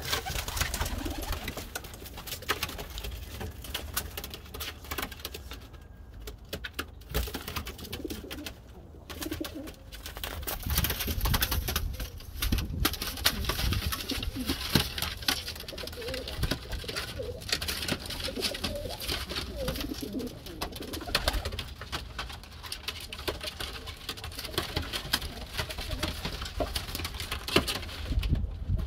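Domestic pigeons cooing, repeated low wavering coos on and off, with scattered clicks and rustling throughout.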